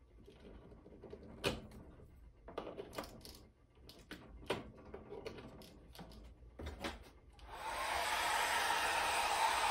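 Several sharp clicks and knocks as a plug and cord are handled at a wall outlet. About three-quarters of the way through, a handheld hair dryer switches on and blows steadily.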